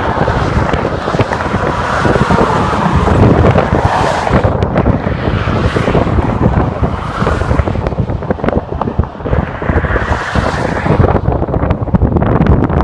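Wind buffeting the microphone over road traffic noise, which swells and fades as vehicles pass.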